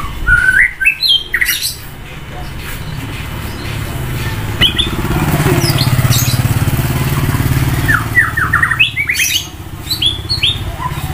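White-rumped shama singing loud rising whistles and quick runs of chattering notes, in two bursts near the start and near the end. In between, a passing vehicle's engine runs with a steady pulsing rumble that swells and fades over several seconds.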